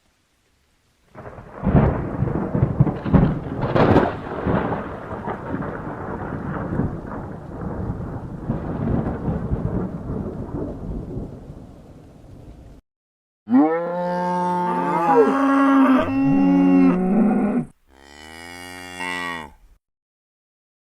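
Stock thunder sound effect: a long, rolling rumble for about eleven seconds. After a short gap it is followed by a few seconds of cow mooing, several pitched calls sliding up and down.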